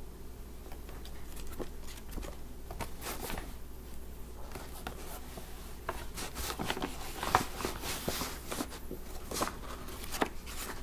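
Bag of yarn being handled: irregular rustling and light clicks that grow busier after the first couple of seconds.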